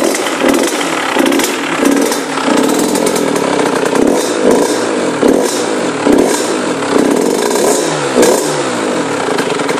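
HM Derapage two-stroke dirt bike engine revved over and over through its aftermarket exhaust, the pitch rising and falling in quick blips about once a second.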